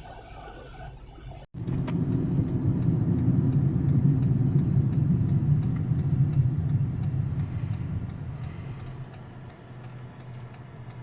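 A vehicle engine rumbling, starting abruptly and loudest a few seconds in, then easing to a steady low hum, with a faint regular ticking.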